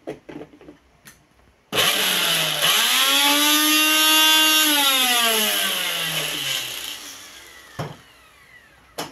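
Preethi Crown 500-watt mixer grinder motor with a steel jar fitted, switched on: it starts suddenly with a whine that climbs in pitch, runs steady for about three seconds, then winds down with falling pitch and fades out after it is switched off. Light clicks of the jar being handled come before and near the end.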